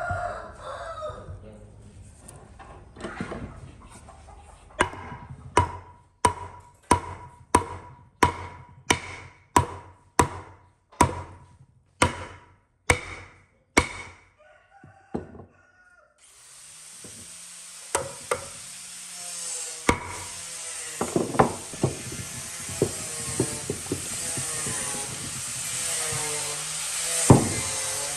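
A rooster's crow ends in the first second. Then comes a run of evenly spaced, sharp ringing strikes, a little under two a second, hand work on the piece. About sixteen seconds in, a power tool starts and runs steadily under scattered knocks.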